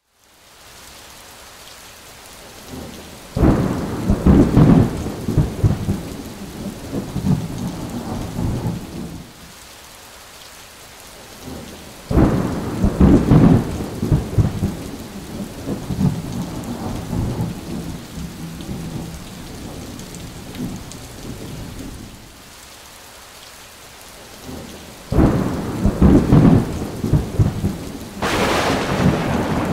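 Thunderstorm: three long peals of thunder, each starting sharply and rolling off over several seconds, roughly ten seconds apart, over steady rain. Near the end a sharper crack of thunder follows the last peal.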